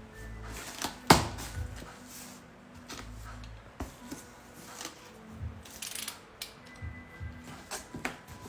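Cardboard shipping box being handled and opened by hand: irregular taps, knocks and scraping rustles of cardboard, with one sharp knock about a second in.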